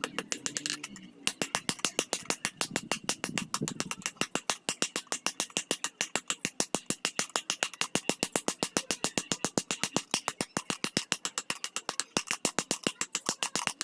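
Rapid, even hammer blows on iron, several strikes a second, with a high ringing from the metal under each blow, as the iron is worked by hand.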